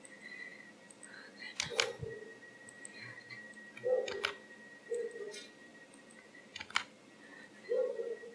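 Computer mouse and keyboard clicks, a few sharp clicks spaced a second or two apart, with short muffled low sounds between them and a faint steady high tone underneath.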